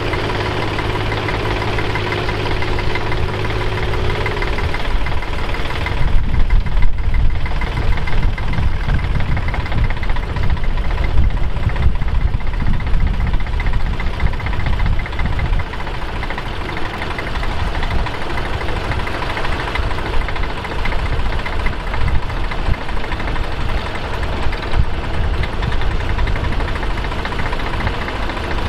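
Bukh Juno tractor's diesel engine running. It is steady at first, then from about five seconds in turns into a deeper, uneven rumble that rises and falls.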